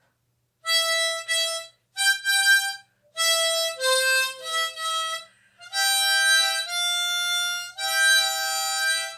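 Harmonica (mouth organ) with metal reeds, played in a run of short phrases of single notes and chords with brief gaps between them, beginning about half a second in.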